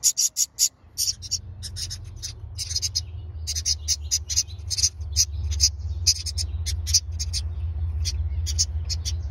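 Nestling birds cheeping inside a nest hole in wood: a rapid series of short, very high-pitched peeps, several a second. A steady low hum runs underneath from about a second in.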